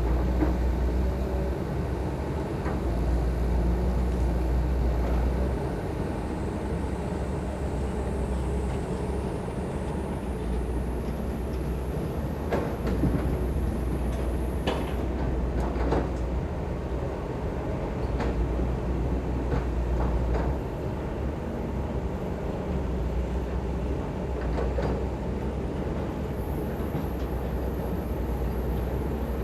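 Heavy diesel construction machinery running: a low engine rumble that swells and eases every few seconds as it works, with a few scattered metallic knocks.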